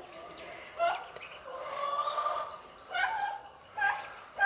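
Young turkey poults calling: a string of short pitched calls with one longer drawn-out call about a second and a half in, over a steady high-pitched whine.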